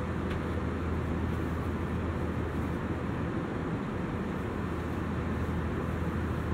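Airbus A320-200 cabin in flight: the steady drone of its IAE V2500 engines and the rush of air past the fuselage, with a low hum underneath.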